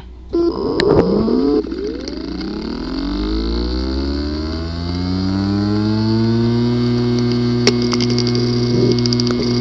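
A damaged 3.5-inch hard drive powered on: a loud buzz for about a second, then the spindle motor spins up with a rising whine that levels off into a steady whir, with a few sharp ticks near the end. The sound is a sign of physical damage inside the disk assembly.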